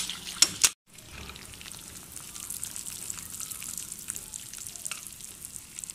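A spatula stirring thick, bubbling apple halwa in a steel pan, with two sharp clicks against the pan. After a brief break, the hot halwa crackles faintly and steadily as it is tipped from the pan into a glass bowl.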